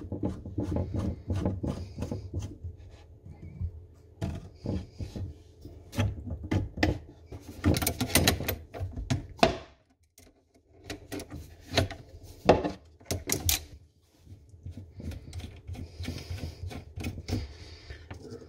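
Grips and an adjustable spanner clicking and knocking against the nuts of flexible tap connectors as they are loosened off the old kitchen tap, with clusters of sharper metal clatter about halfway through and brief pauses between.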